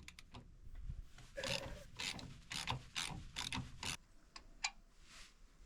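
Ratchet wrench turning a bolt on a worn hitch: a run of rasping, clicking strokes, about two a second, for some four seconds, then two short clicks.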